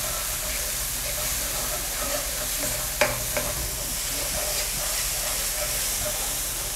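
Tomato paste and spices frying in oil in a non-stick pan, sizzling steadily while a wooden spatula stirs and scrapes through the mixture. A sharp tap about three seconds in, with a smaller one just after.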